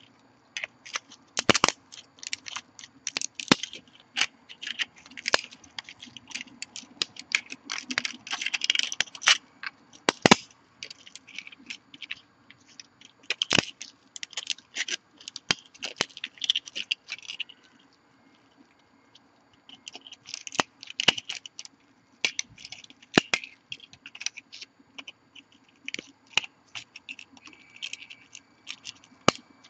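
Support material being snapped and pried off a 3D-printed plastic part with pliers: a run of sharp cracks and snaps mixed with scraping and crunching, pausing for about two seconds just over halfway through.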